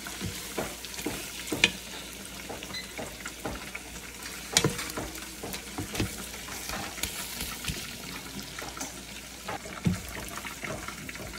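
Ground beef and corned beef sizzling in a pot as a wooden spoon stirs and scrapes through them. Scattered sharp knocks come where the spoon strikes the pot.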